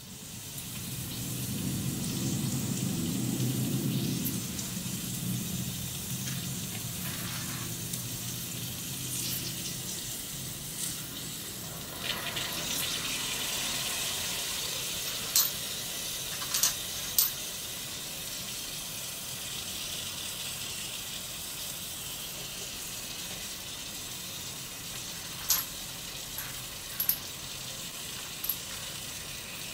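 Bok choy and chicken sizzling steadily in a miniature wok heated by a small candle flame. A few sharp clicks of the tiny spatula against the pan come around the middle and again near the end.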